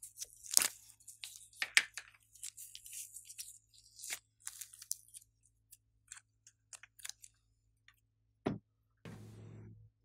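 Hands handling a plastic glitter compact and glitter slime: a couple of sharp clicks as the compact is pried open, then crackling and ticking. Near the end come a single thump and a short low rasp.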